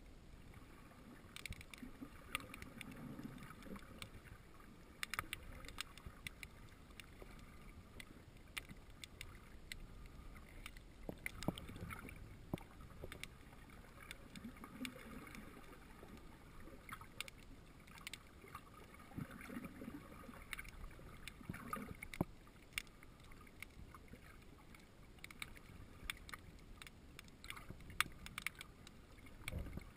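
Faint, muffled underwater ambience picked up by a submerged camera: a low water wash with scattered small clicks and crackles and a soft low whoosh every few seconds.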